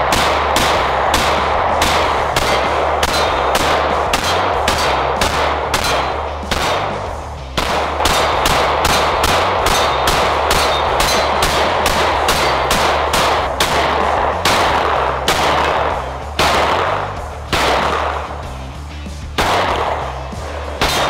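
Taurus TS9 9mm pistol firing rapid strings of shots, about two to three a second with short pauses between strings, each shot ringing out. Background music with a steady bass runs underneath.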